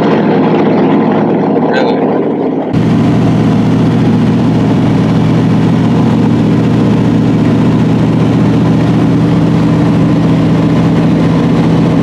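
Light float plane's engine and propeller droning steadily, heard from inside the cabin during a low, slow pass. Just under three seconds in the drone changes abruptly in tone and then runs on unchanged.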